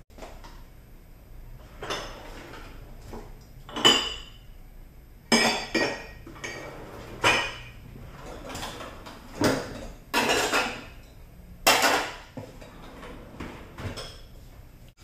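Kitchen dishes and a glass bowl clinking and knocking as they are handled and set down: about a dozen separate knocks and clinks, a few ringing briefly.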